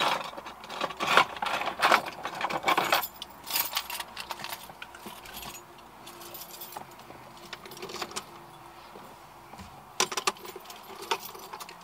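A bunch of car keys jangling and clicking, thickest in the first three seconds, then scattered clicks and a few sharp clicks about ten seconds in as the key goes into the ignition to switch it on.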